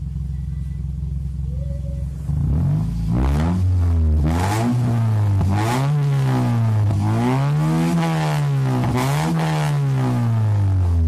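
Toyota Vios's engine idling, then revved about five times from about two seconds in, each rev rising and falling in pitch. It is heard through a newly fitted NDK DK03V3 aftermarket exhaust.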